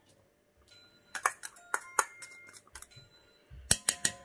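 A metal utensil clinking and tapping against a cooking pot in three quick clusters, about a second in, about two seconds in and near the end. The taps ring briefly with a metallic tone.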